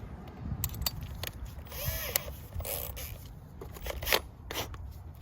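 Scattered clicks and knocks of drill bits being handled and swapped for the next size up, with a short squeak about two seconds in.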